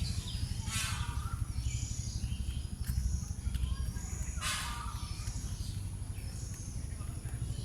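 Two loud, harsh bird calls about four seconds apart, with smaller birds chirping between them over a steady low rumble.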